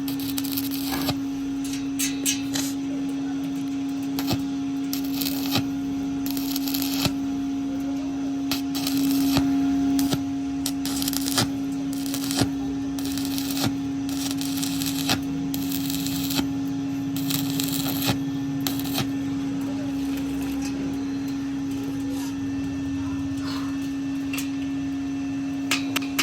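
Stick-welding arc on a pipe joint, crackling and snapping unevenly over a steady hum.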